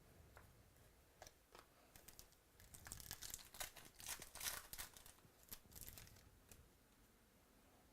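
Faint crinkling of plastic wrapping and light clicks as trading cards and their packaging are handled. The rustling starts about a second in, is busiest in the middle and dies down near the end.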